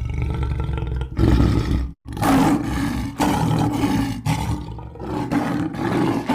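Lion roaring: a continuous low, rough roar that breaks off briefly about two seconds in, then a run of shorter roars about a second each.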